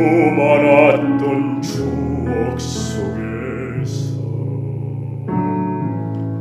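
A man singing a slow, sad ballad over piano accompaniment, in an early recording of his bare voice made without proper equipment. The sung phrase ends about four seconds in, and a new piano chord comes in about a second later.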